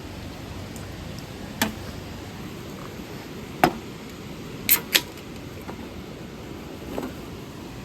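A steady hiss with five sharp clicks or knocks scattered through it, two of them in quick succession about five seconds in.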